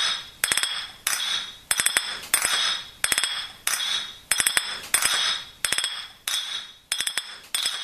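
A spoon clinking against a cup in a steady rhythm, a cluster of quick clinks roughly every half second or so, each ringing briefly.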